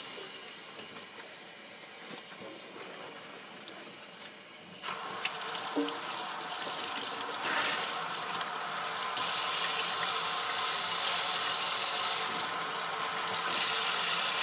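Kitchen tap running into a stainless steel sink, the water splashing over tie-dyed cloth being rinsed of leftover dye. The flow gets louder about five seconds in and again about nine seconds in.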